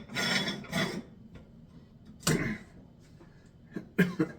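Metal parts of a meat grinder being handled: about a second of scraping as the parts are fitted, a short rattle near the middle, then a few sharp clicks near the end.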